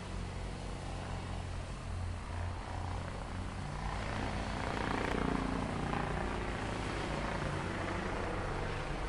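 Heavy machinery's engine running steadily with a low hum, growing louder for a couple of seconds about four to six seconds in.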